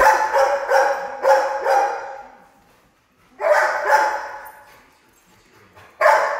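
A dog barking: a quick run of about five barks, a pause, two more, then another run near the end.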